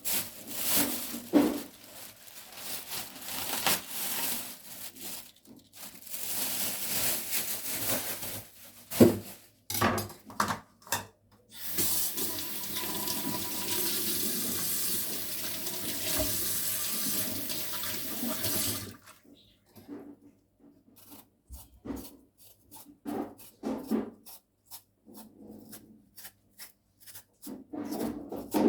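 Kitchen tap running into a sink in several spells, the longest lasting about seven seconds, with knocks and clatter between them. Near the end the water stops and only light clicks and knocks follow.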